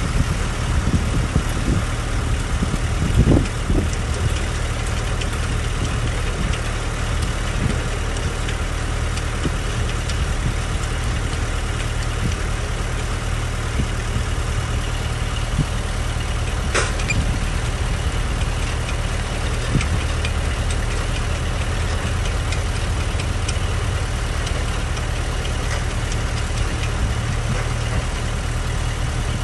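Heavy-equipment diesel engine running steadily at low speed, with an occasional sharp clank.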